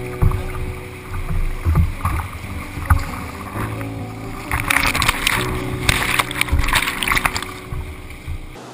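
River water rushing and splashing around a whitewater kayak, close to a camera on its deck, with a few low thumps early on. The splashing grows loud from about halfway through as the kayak runs into a rapid. Background music with steady low tones plays under it.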